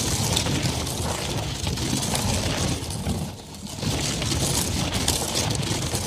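A catapult being moved along a dirt road: a steady low rumble with dense small crackles and clicks, fading briefly a little past halfway before picking up again.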